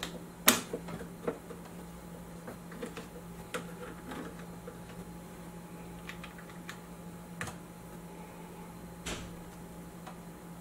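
Scattered sharp clicks and light knocks of a Marantz 2250B receiver's metal faceplate and control knobs being handled and pressed into place, the loudest click about half a second in, over a faint steady low hum.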